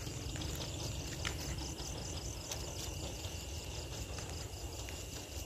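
Night insects chirping in a steady, fast, high-pitched repeating pulse over a low rumble, with a few faint crackles from burning rice straw.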